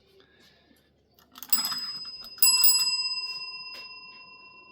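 A cat rings a small bell to ask for another bite of food: two strikes about a second apart, the second ringing clearly and fading slowly.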